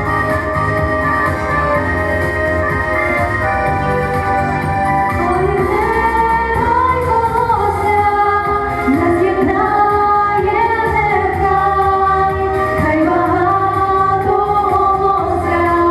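Women singing a Ukrainian pop song over steady instrumental backing. The backing plays alone at first, and the voices come in about five seconds in, singing with vibrato.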